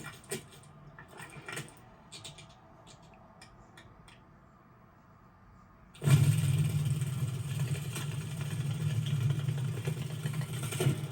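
Faint scattered clicks and ticks, then about six seconds in a loud, steady engine-like drone starts suddenly and keeps going.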